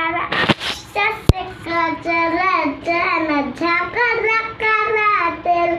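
A voice singing a Bhojpuri song unaccompanied, in long held notes that bend up and down. A short rush of noise comes near the start, and a sharp click about a second in.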